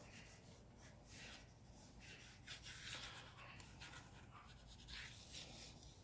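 Graphite pencil scratching faintly across drawing paper in a series of short, irregular sketching strokes.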